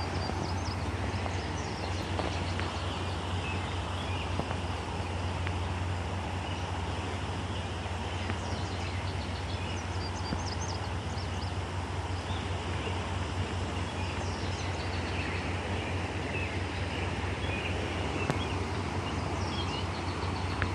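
Outdoor ambience: a steady low rumbling noise with small birds chirping on and off throughout.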